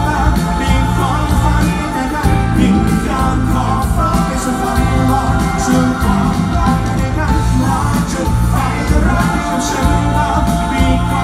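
A pop vocal group singing live through an arena PA system, with band and keyboard backing.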